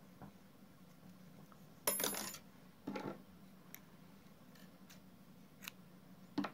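Metal knitting needles and a pair of scissors being handled, with a scissor snip through wool yarn. The loudest is a ringing metallic clink about two seconds in, followed by a softer knock and a few faint clicks.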